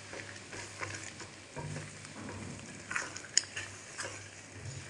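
Eggs frying in oil and tomato masala in an aluminium pan: a light sizzle while a spatula stirs and scrapes through them. A sharp click about three and a half seconds in.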